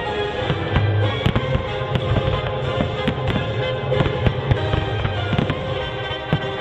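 Pyrotechnic fireworks display with many sharp bangs going off in quick succession, over loud music played with the show.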